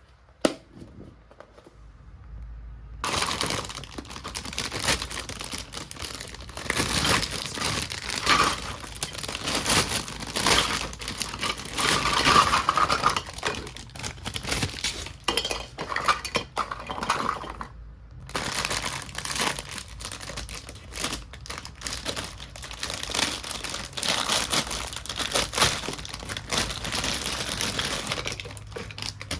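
A single sharp click, then, from about three seconds in, continuous crinkling and rustling of packaging as toy kitchen pieces are unwrapped, with a short pause near the two-thirds mark.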